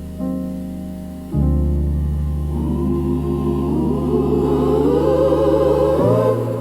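Gospel music: sustained piano or organ chords over a deep bass, with a choir coming in about a second and a half in and swelling before the chord changes near the end.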